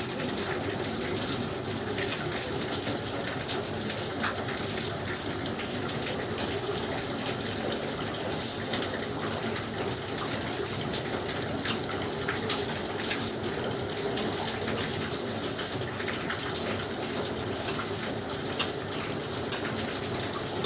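A steady rush of running water that keeps up without a break, with a few light ticks and drips scattered through it.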